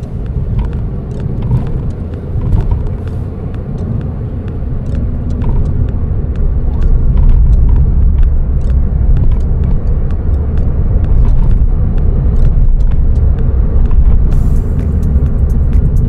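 Inside the cabin of a moving Suzuki Swift Sport (ZC32S): a steady low rumble of engine and road noise that grows louder about six seconds in.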